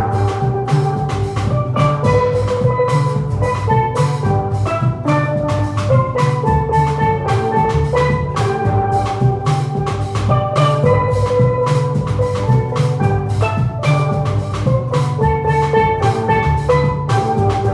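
Steel band playing a lively hymn tune: steel pans ringing out rapid melody notes over bass pans and a drum kit keeping a steady beat.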